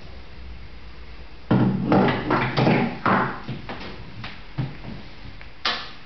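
Espresso cups clattering and knocking as they are handled and set down on an espresso machine's metal drip tray: a run of irregular knocks from about a second and a half in, and one sharp clink near the end.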